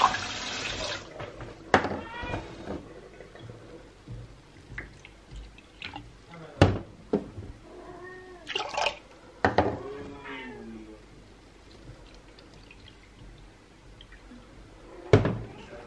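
An animal calling several times, short cries that rise and fall in pitch, most of them a little past the middle. Between them come a few sharp knocks of glass on a stainless-steel counter.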